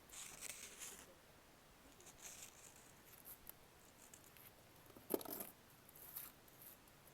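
Faint gritty crunching of cement chunks being crumbled, in several short crackly bursts. The loudest and fullest comes a little past halfway.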